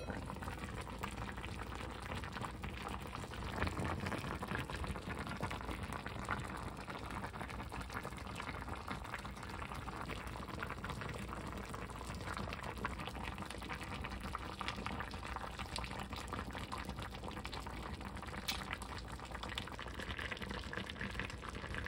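Pork and leeks simmering in their own released juices in an enamelled cast-iron pot, bubbling steadily.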